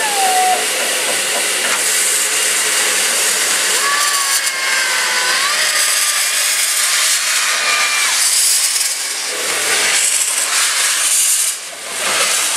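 Steam locomotive's open cylinder drain cocks blowing off steam in a loud, continuous hiss, with a few separate puffs near the end as the engine moves off.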